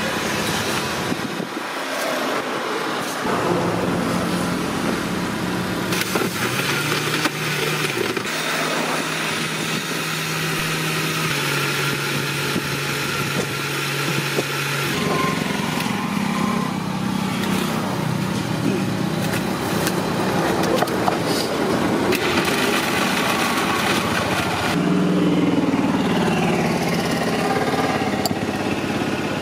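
A small motor running steadily, its pitch stepping up or down a few times.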